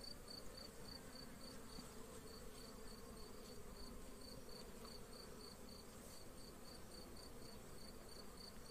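Faint, steady buzzing of honeybees crowding the frames of an opened hive, with a high-pitched chirp repeating about three times a second throughout.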